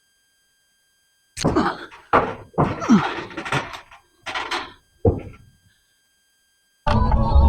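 About five heavy thunks and knocks in quick succession, some with a brief ringing, then background music starts near the end.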